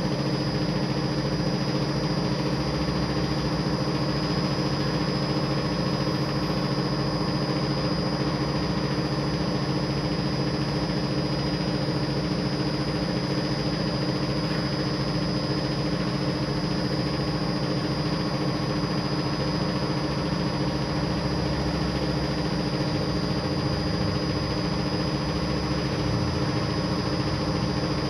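A motor or engine running steadily at a constant speed: an even mechanical hum with a few fixed tones, no change in pitch or level.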